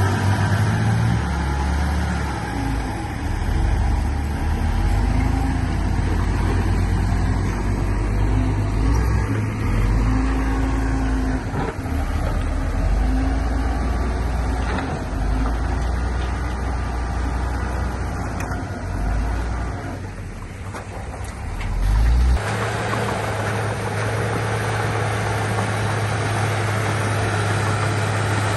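Heavy diesel engine of earthmoving machinery working, its rumble rising and falling with the load; about 22 seconds in it changes abruptly to a steady, even running.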